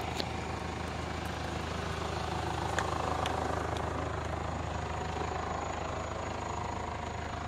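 A steady low mechanical hum under a hiss, swelling slightly a few seconds in.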